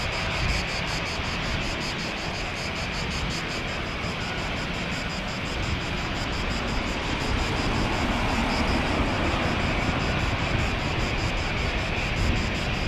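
Jet engine noise from a Boeing 777-300ER's twin GE90-115B turbofans at takeoff thrust as the airliner climbs away: a steady rushing noise that grows a little louder about halfway through.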